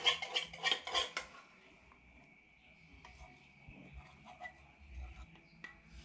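A metal spoon clinking and scraping against a small saucepan of gravy, a quick cluster of clinks in the first second or so, then only a few soft taps as the gravy is spooned out.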